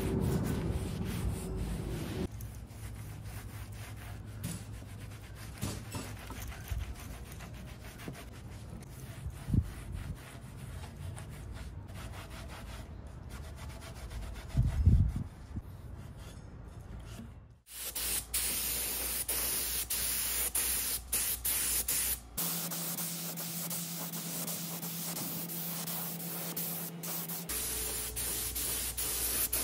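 A cloth rag wiping wood stain over a wooden chair, a soft scratchy rubbing. About eighteen seconds in, after an abrupt cut, a compressed-air spray gun hisses steadily as it sprays finish onto the chair.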